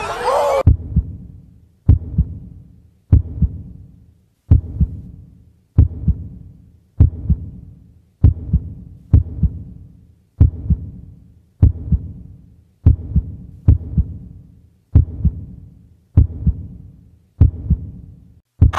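Heartbeat sound effect: slow, regular double thumps, about one every 1.2 seconds, each fading away before the next.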